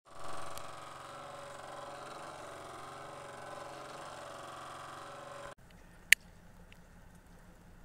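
A steady hum fills the first five and a half seconds, then cuts to a quieter background. About six seconds in comes one sharp click of a lighter being struck.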